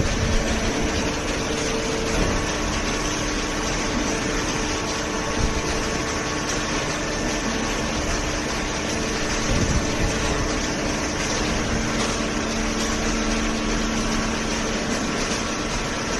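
Small hydraulic cardboard baler running, its motor and hydraulic pump giving a steady mechanical hum with a few even tones over a wash of noise.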